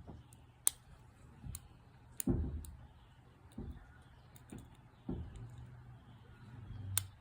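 A McTickler lock pick working the pins of a 7-pin Paclock padlock under heavy tension: scattered sharp metallic clicks, a few of them louder, among dull bumps from handling the lock.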